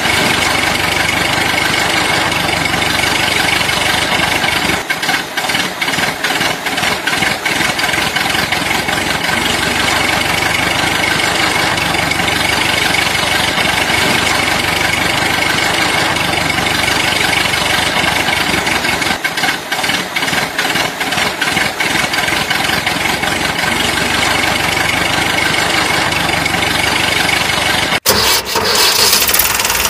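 Engine sound of a toy remote-control excavator, running steadily like an idling diesel. Stretches of rapid ticking come around five to eight seconds in and again around twenty seconds. The sound changes abruptly near the end.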